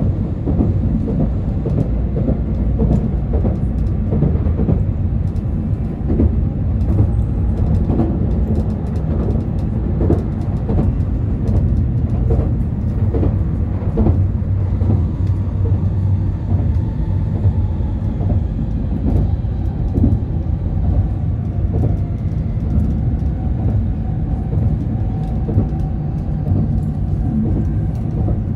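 Shinkansen bullet train running at speed, heard from inside the passenger car: a steady low rumble with occasional light knocks.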